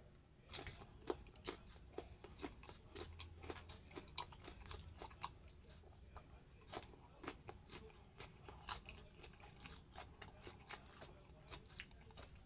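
Close-up chewing and biting of mango slices: a run of irregular crisp crunches, a few each second, at a faint level.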